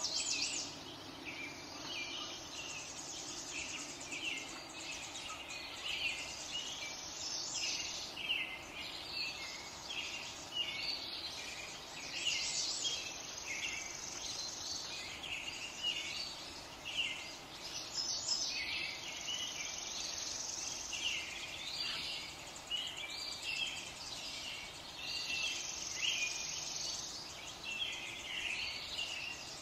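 Small birds chirping and twittering, a dense run of short high calls, with stretches of high insect trilling mixed in.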